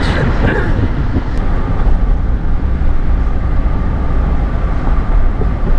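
Road and engine noise inside a moving Jeep: a steady low rumble with a faint steady whine.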